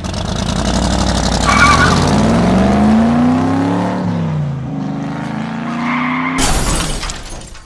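Racing car engines revving, their pitch climbing and dropping, with tires squealing twice, then a loud crash about six and a half seconds in.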